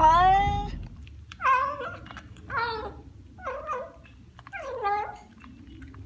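Cat meowing: a drawn-out meow that sounds like "hello" in the first second, over a car's low rumble, then four short meows about a second apart.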